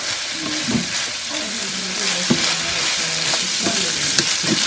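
Ground beef, onion and diced bell peppers sizzling in a stone-coated frying pan as a wooden spoon stirs them, with the spoon scraping the pan now and then.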